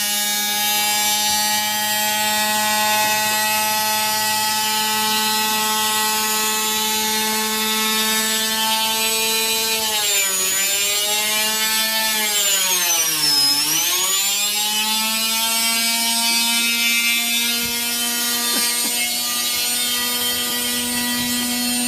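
Washing machine in its spin cycle, its motor running with a steady high whine. About halfway through the pitch drops sharply and then climbs back up as the drum slows and speeds up again.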